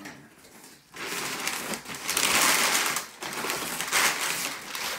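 Crumpled brown kraft packing paper crinkling and rustling as it is pulled out of a cardboard shipping box. It starts about a second in and is loudest around the middle.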